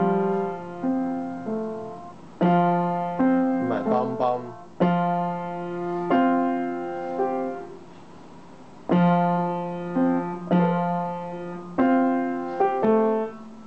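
Upright piano played four-handed by an adult and a child: short phrases of struck chords and a few quicker notes, each chord left to ring and die away, with brief pauses between phrases.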